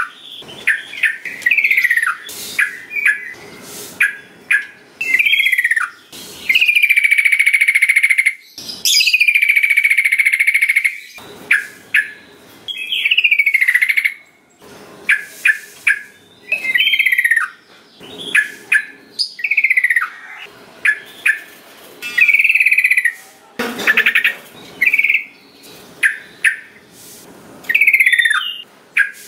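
Sooty-headed bulbul (trucukan) calling: short whistled notes that slur downward, repeated about once a second, with two longer drawn-out notes about seven and nine seconds in.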